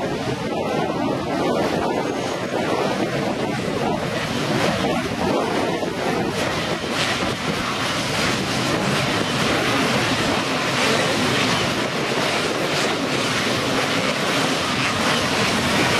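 Racing motorcycle engines running on the start line, mixed with heavy wind noise on the microphone; the engine noise fills out and grows a little louder about six seconds in.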